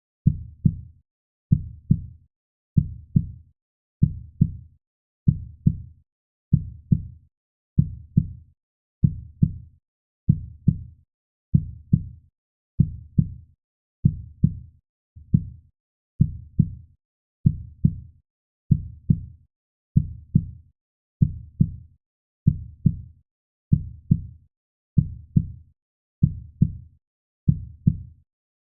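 Heartbeat sound: a slow, steady lub-dub, each beat a pair of soft low thumps, repeating about every second and a quarter without change.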